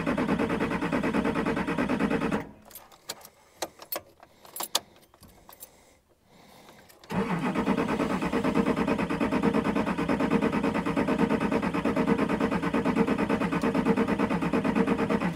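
Starter motor cranking a diesel truck engine with a steady rhythmic chug, its fuel system just bled of air after sitting for months. The cranking stops about two and a half seconds in, and there are a few clicks during a pause of several seconds. A second long crank starts about seven seconds in.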